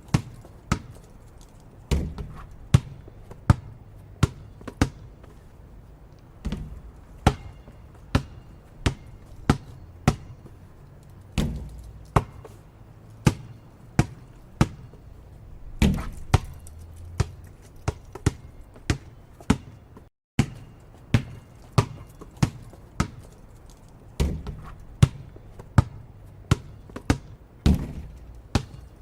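Basketball bouncing on a court, dribbled in sharp, irregular bounces about one to two a second, some landing with a heavier thud. The sound drops out briefly about twenty seconds in.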